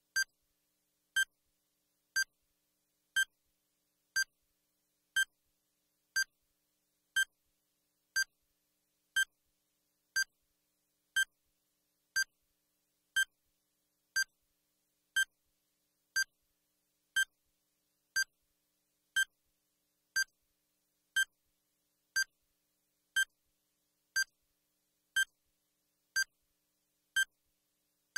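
Countdown timer beeping once a second: a short, evenly spaced beep marks each second as the one-minute solving time counts down.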